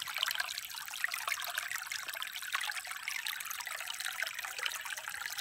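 Shallow creek water trickling over rocks: a steady babble of many small, quick splashes, light and bright with little low rumble.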